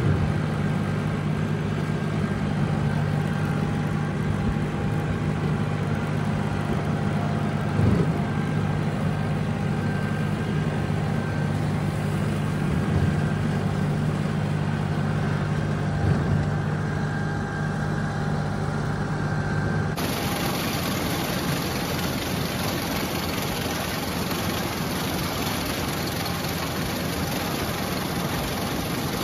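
Tractor engine running steadily while pulling a rotary cutter (bush hog), with a few short thumps, the loudest about eight seconds in. About two-thirds of the way through, the sound cuts abruptly to the denser, noisier running of a tractor-drawn one-row corn picker.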